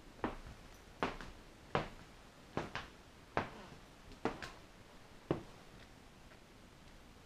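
Footsteps at a steady walking pace on a hard tile floor, about seven sharp knocks a little under a second apart, two of them doubled.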